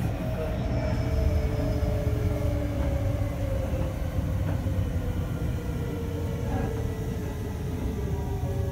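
Senboku 7000 series electric train heard from inside the passenger car, slowing: the Hitachi IGBT three-level VVVF inverter and traction motors whine in a few tones that fall slowly in pitch as speed drops, over a steady rumble of wheels on rail.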